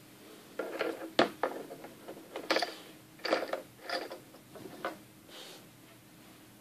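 Playmobil toy climbing rope being hauled up in short tugs: the thin nylon cord runs through its small plastic rope adjuster as the figure is hoisted, giving a string of short scraping, clicking strokes that stop about five and a half seconds in.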